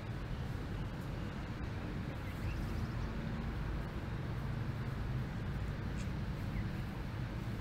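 Steady low rumble of outdoor background noise, with a couple of faint short high chirps and no mooing in this stretch.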